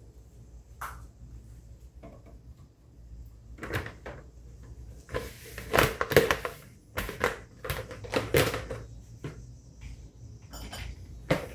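Dishes and kitchenware being handled and set down: irregular knocks and clatter, busiest in the middle.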